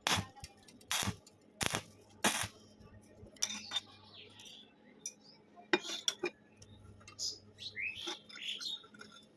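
Sharp metallic clinks and knocks. Four come in quick succession about every half second to second, then after a pause two more close together about six seconds in.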